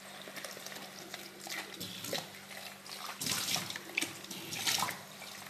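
Tap water running into a plastic bowl while hands rub and swish eggplant pieces in it, with irregular splashing that grows louder about three seconds in.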